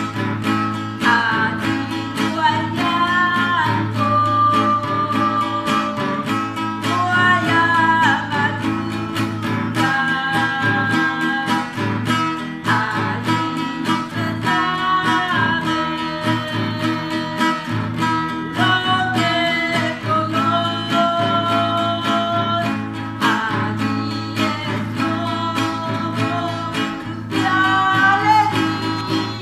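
A woman singing a song while strumming chords on a nylon-string classical guitar.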